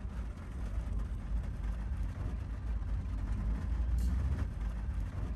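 Heavy rain heard from inside a car cabin: a steady low rumble with the hiss of rain beating on the roof and windows.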